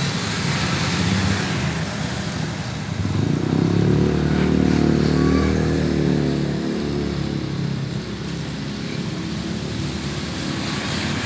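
Road traffic: a motor vehicle's engine passes close by, growing louder about three seconds in and fading away after about seven seconds, over steady traffic noise.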